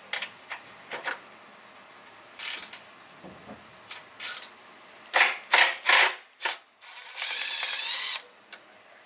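Cordless impact driver working on a 14 mm engine mount bolt. It fires in short hammering bursts, loudest about five to six seconds in, as the bolt breaks loose, then runs steadily for about a second near the end as it backs the bolt off.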